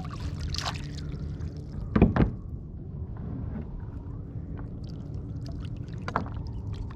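Water sloshing against a small fishing boat's hull, with two sharp knocks on the boat about two seconds in and a lighter one near the end, over a steady low rumble.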